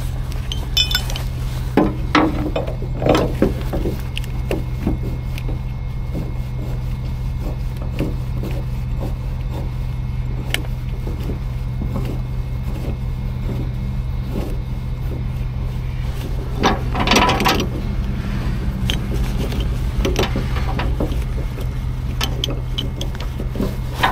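A truck engine idling steadily, with scattered metal clinks and rattles of rigging hardware (hooks and chain) being handled, and a louder clatter about two-thirds of the way through.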